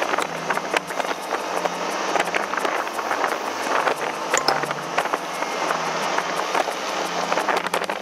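Ride noise on a moving vehicle: wind rushing over the microphone with constant small rattles and knocks, over a low hum that swells and fades.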